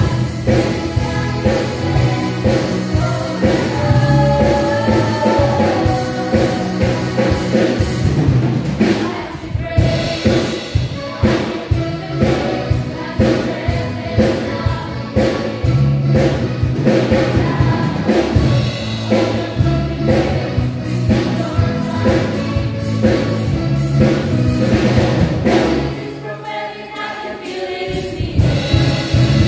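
A youth choir singing an upbeat gospel song in unison over an instrumental accompaniment with a steady beat. Near the end the bass and drums drop out for a moment, leaving the voices more exposed, then come back in.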